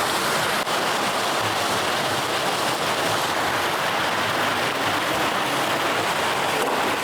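Steady rush of running water, an even hiss with no pauses.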